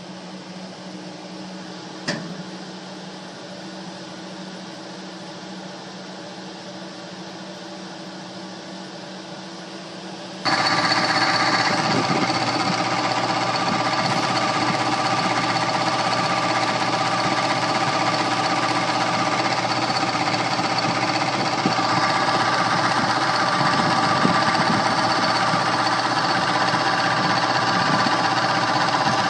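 Two-speed electric blower motor running with a bad bearing: a steady hum with a click about two seconds in, then about ten seconds in it turns suddenly much louder and rougher, with a harsh rattling whine, the way it runs noisily on high speed.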